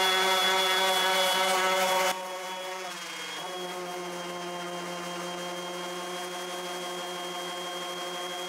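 Random orbital sander running on softwood: a steady motor whine over a low hum. It is louder and hissier for the first two seconds, and about three seconds in its pitch briefly sags before settling again.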